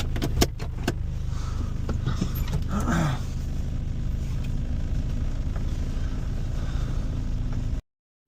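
Vehicle engine running steadily with a low, even hum, with a few clicks near the start and a short rising squeak about three seconds in; the sound cuts off suddenly just before the end.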